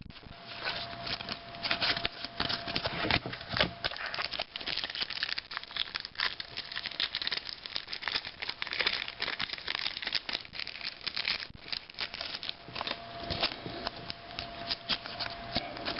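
Trading-card pack wrappers crinkling and tearing as cards are handled and flicked through by hand: a busy, irregular stream of small crackles and ticks.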